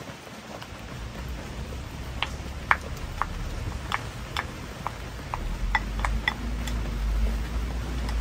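Chopsticks and a spoon clinking lightly against a ceramic bowl, about a dozen sharp clicks in a few seconds, over a steady low rumble.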